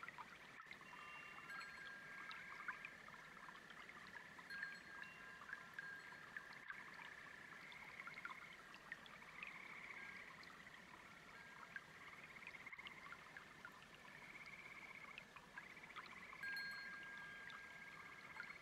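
Faint layered nature ambience: frogs and insects trilling in a dense chorus over a softly babbling brook, with quiet wind chimes ringing now and then.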